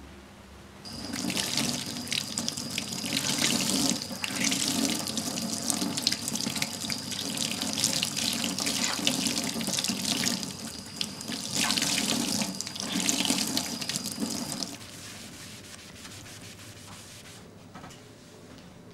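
Bathroom sink tap running, its water splashing into the basin and rising and falling in strength, with a thin steady high whistle over it. It starts about a second in and stops about fifteen seconds in.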